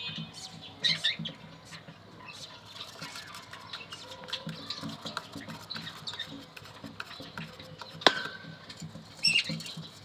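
Budgerigars and their newly hatched chicks in the nest box, making short high chirps and squeaks. Underneath runs scratching and shuffling in the nest bedding, and there is one sharp click about eight seconds in.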